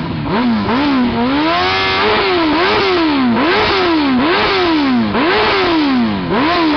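Suzuki GSX-R1000 inline-four engine through a Yoshimura M4 GP exhaust, revved in repeated throttle blips. Its pitch shoots up and drops back about once a second, with one rev held briefly about two seconds in.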